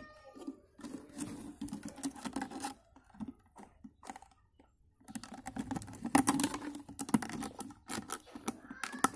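Thin plastic drink bottle being handled, its walls crackling and clicking in irregular bursts, with a quieter stretch in the middle and busiest over the last few seconds.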